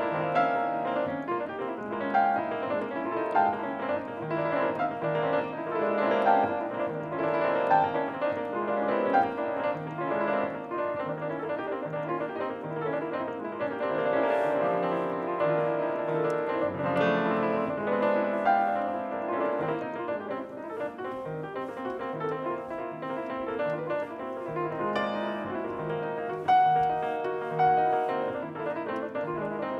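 Grand piano played solo, a continuous flowing piece with short repeated bass notes under a higher melody.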